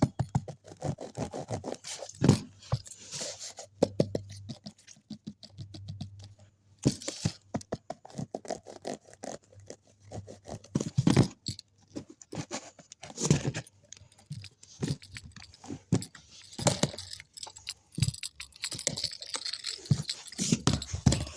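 Hands handling a handbag at close range: scratching and scraping its surface, with crinkly rustles and many small irregular clicks and taps.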